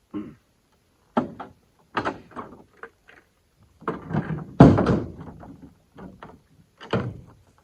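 A string of separate knocks and thuds, like a door or gear being handled, with the heaviest thud about halfway through.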